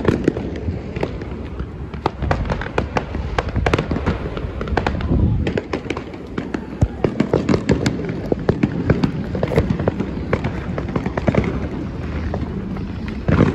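Fireworks display going off: an irregular, rapid run of many sharp bangs and crackles.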